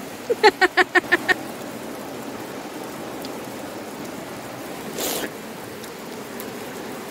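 Creek water running steadily, with a quick run of laughter in the first second and a short slurp about five seconds in as water is sipped from a cupped hand.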